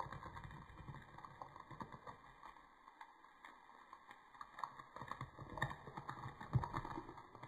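Irregular light ticks and taps, with a few low thumps, loudest in the second half, as something is sprinkled by hand over raw meat, mushrooms and zucchini in a clay sač baking dish.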